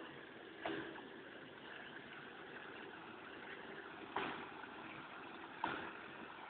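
A 4x4's engine running at low revs as it wades through a muddy, water-filled rut, with three sudden thumps about a second in, two-thirds through and near the end.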